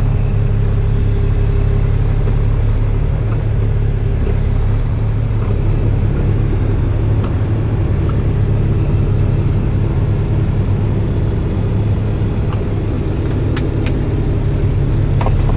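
Diesel engine of a heavy rotator wrecker idling steadily, a constant low hum heard from inside the cab. A couple of faint clicks near the end.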